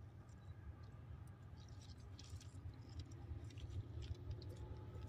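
Faint low rumble of a distant approaching train, slowly growing louder, with scattered small crackling clicks.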